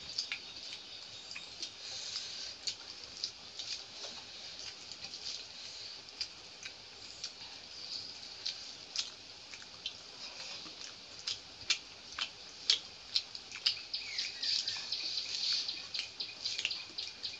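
Eating sounds: wet chewing and lip-smacking clicks as two people eat rice and fish curry by hand, with fingers mixing the rice on steel plates. The clicks come irregularly and thicken toward the end.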